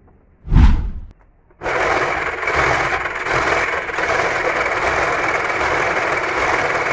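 A heavy low thump about half a second in. Then a small electric concrete mixer runs with a steady, loud noise from about a second and a half in.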